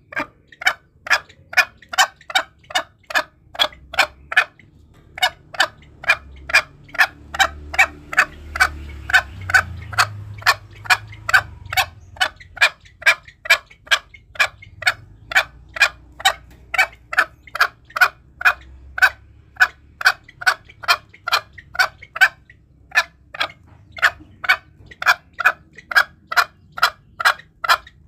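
Green junglefowl giving a long, even series of short, sharp clucks, about two a second, with a couple of brief pauses; a recorded call used as a hunting lure.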